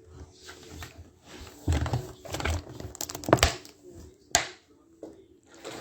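A few scattered knocks, taps and clicks, the sharpest one about four seconds in.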